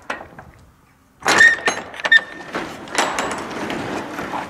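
Rear roll-up door of a box moving truck being unlatched and raised: a couple of sharp latch clicks, then about a second in a loud metallic clatter with short squeaks as the door runs up its track, rattling on as it rolls up.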